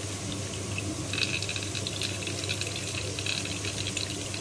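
Soaking water being poured off a bowl of soaked urad dal, trickling and splashing from about a second in, over a steady low hum.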